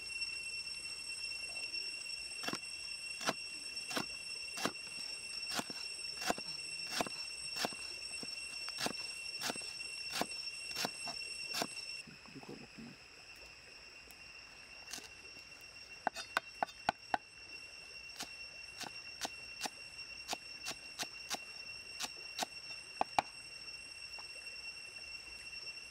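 Cleaver chopping vegetables on a wooden chopping block: sharp, evenly paced knocks, a little under two a second. Midway the chopping goes quieter, then a quick flurry of chops comes about sixteen seconds in before the even strokes resume.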